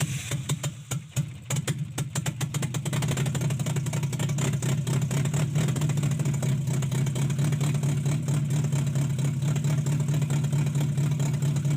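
Toyota Corolla XLi petrol engine, running with its exhaust silencer removed. It runs in uneven, clattery pulses for the first few seconds, then settles into a steady idle.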